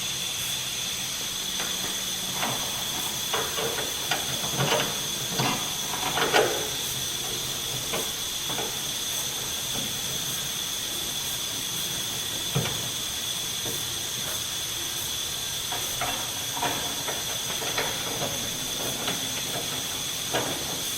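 Scattered metal clinks and knocks as a car hood is worked onto its hinges by hand, the loudest about six seconds in, over a steady high hiss.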